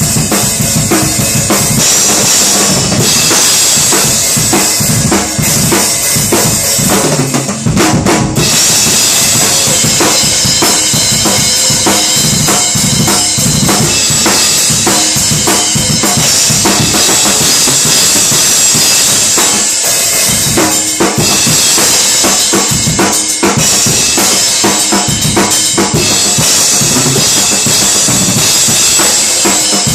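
Drum kit played freestyle: dense, continuous snare, bass drum and rimshot strokes under steady cymbal wash, with a brief break just before eight seconds in.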